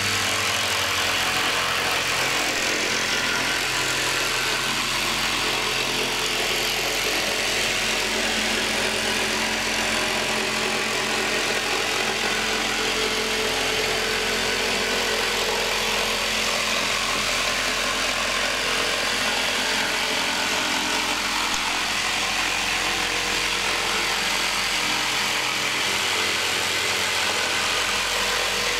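Jigsaw running steadily as it cuts a curve through 18 mm chipboard, an even motor drone with a strong hiss.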